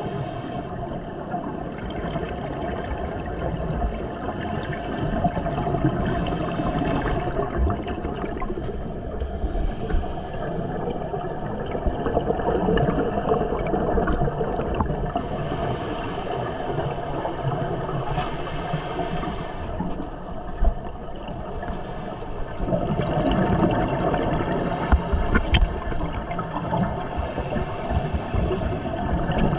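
Underwater sound of scuba divers breathing through their regulators, heard through an action camera's housing: a steady water rumble with bursts of exhaled bubbles every few seconds.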